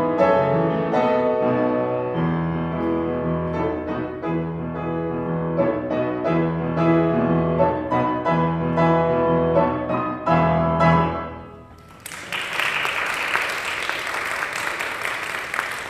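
Solo piano music with repeated low bass notes, fading away about eleven seconds in. About a second later comes a few seconds of applause.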